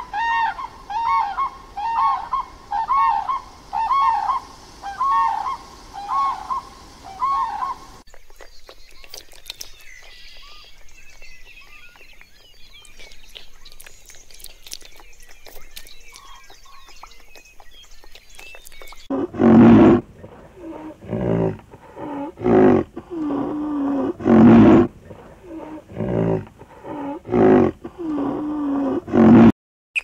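Sandhill cranes calling: a run of repeated pitched calls, about one and a half a second, lasting some eight seconds. Then comes a quieter stretch of small splashes and clicks from koi crowding at a pond's surface. From about two-thirds of the way in there is a series of loud, low calls from a large animal, about one a second, the loudest sound here.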